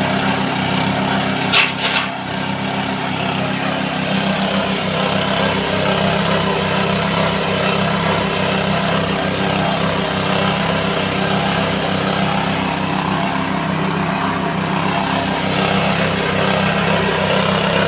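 Small engine-driven multipurpose chopper machine running steadily. Two short, sharp sounds come about a second and a half to two seconds in.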